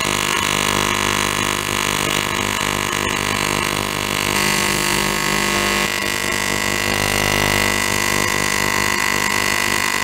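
AC TIG welding arc on a cast aluminum engine case, buzzing steadily at a low AC frequency of about 50 Hz and around 100 amps, its tone shifting slightly about six seconds in. The low frequency agitates the casting, working through the oxide and floating impurities to the surface before the puddle is allowed to go shiny.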